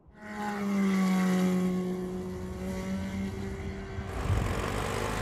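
Race car engine holding one steady note for about three seconds, then fading out, with a low noisy rumble taking over near the end.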